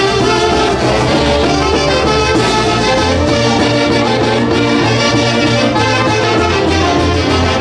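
Peruvian folk orchestra playing a Santiago tune, horns carrying the melody over a steady bass.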